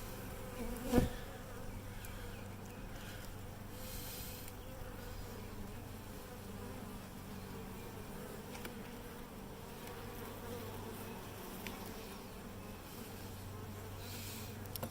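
Honeybee colony buzzing steadily in an open hive box during an inspection, with a single sharp knock about a second in.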